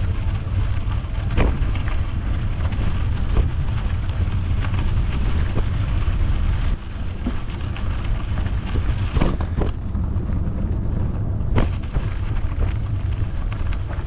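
Wind buffeting the microphone of a rider on a moving mountain bike: a steady low rumble, with a few sharp knocks scattered through it and a brief drop in level about halfway through.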